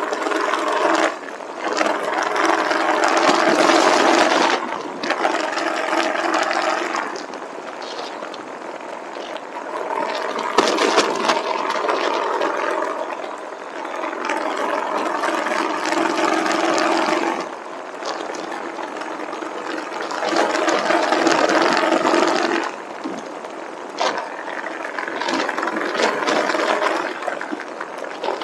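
Motorcycle engine running at a steady pitch under heavy wind noise on the microphone, swelling louder several times for a few seconds each.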